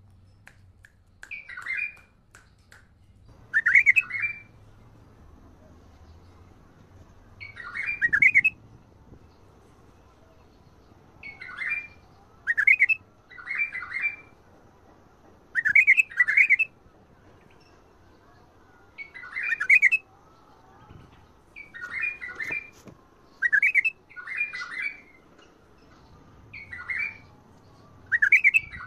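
White-eared (Iraqi) bulbul singing in the Badrawi and Mandalawi song styles. About a dozen short chirpy phrases, each under a second long, come with pauses of one to three seconds between them.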